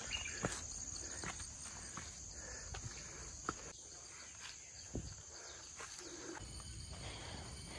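Footsteps on a dirt hiking trail, roughly one step a second, over a steady high-pitched insect drone.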